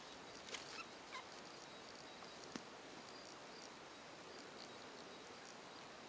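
Budgerigars chirping faintly over a steady hiss, with a few louder short calls in the first second or so. A single sharp click comes about two and a half seconds in.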